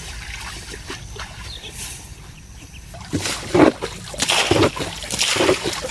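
Water splashing and sloshing: a quiet stretch, then a run of loud, irregular splashes starting about three seconds in.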